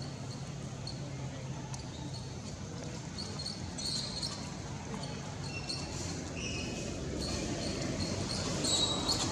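Outdoor ambience: a steady low hum with scattered short, high chirps and ticks, which grow busier near the end.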